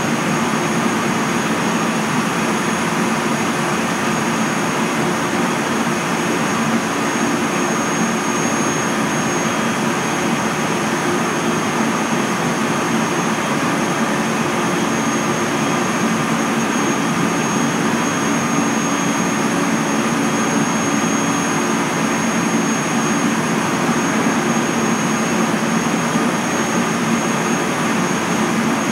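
Running noise of a JR Central 373 series electric multiple unit heard from inside the passenger car: a steady noise of wheels on rail and running gear. A thin, high, steady tone sits over it.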